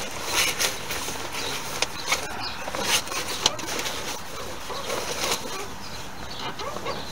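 Rustling and flapping of new headliner material as it is handled and pushed up into a car roof, with a few sharp knocks and taps, the loudest about three and a half seconds in.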